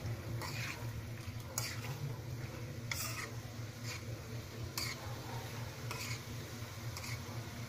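Spatula stirring chicken pieces in a metal frying pan, with short scraping strokes against the pan about every second or so, over a steady low hum.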